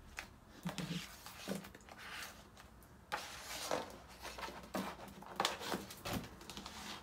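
Pages of a hardcover picture book being turned and the book flipped shut: a series of soft paper rustles and handling noises, the strongest in the second half.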